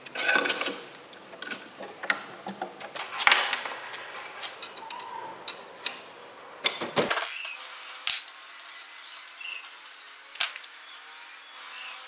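Irregular metallic clicks and clanks of hand work on a steel angle grinder attachment: a spanner on the nut that holds the chisel bit, and metal parts being handled and fitted. The loudest knocks come just after the start and about three seconds in.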